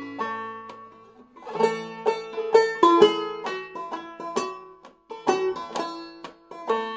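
Five-string banjo played clawhammer style in double B-flat tuning, a waltz melody of plucked notes that ring and fade, with a brief break about five seconds in.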